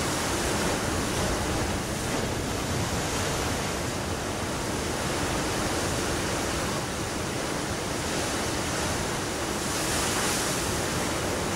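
Sea surf washing over a rocky shore: a steady rushing noise that swells briefly near the end.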